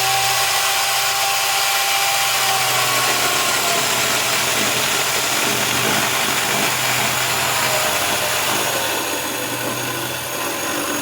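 Worx electric chainsaw running and cutting through lumber. Its motor whine sinks slowly in pitch as the chain works through the wood, then eases off near the end.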